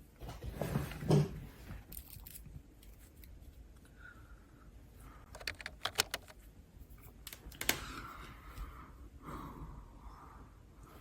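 Scattered small clicks and taps with soft rustling, from small objects being handled and set down on a desk.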